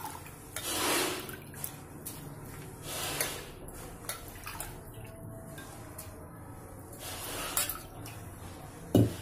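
Handfuls of raw basmati rice dropped into a pan of spiced stock that has just come to a simmer, with watery splashes about four times, the sharpest near the end.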